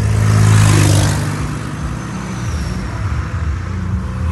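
Road traffic heard from a moving car: a steady low engine and road hum, with a rush of tyre and air noise that swells as a car passes close about half a second in, then eases off.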